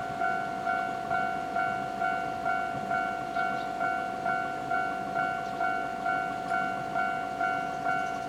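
Japanese railway level-crossing warning bell ringing steadily, about two strikes a second, each strike ringing out and fading before the next.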